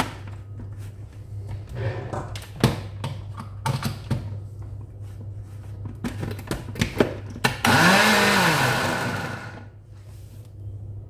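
Moulinex countertop blender: a few clicks and knocks as the plastic jar is handled on its base. About seven and a half seconds in, the motor runs for about two seconds, its pitch rising as it spins up and falling as it stops, on a jar of fruit chunks with no water added.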